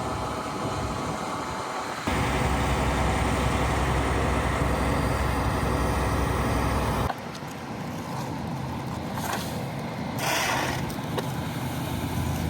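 Heavy equipment engine running steadily. The sound changes abruptly twice, about two and seven seconds in, as one stretch of machine noise gives way to another.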